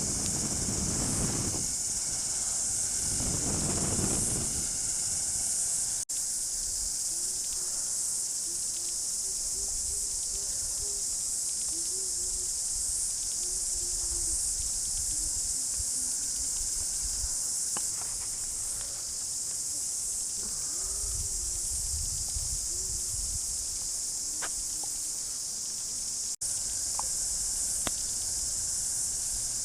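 A steady, high-pitched chorus of insects droning without a break. There are a few low rustling and handling sounds near the start and again later on.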